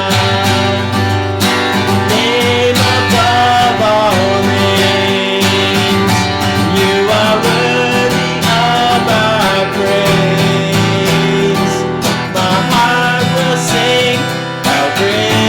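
Music led by a strummed acoustic guitar, with a melody line gliding above the chords.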